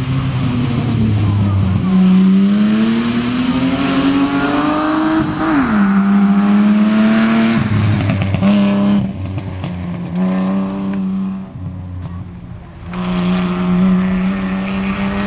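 Rally car engine at full throttle on a gravel stage: it climbs steadily in pitch for about three seconds, drops sharply at an upshift, then holds high revs with short lifts off the throttle. It fades briefly near the end before coming back.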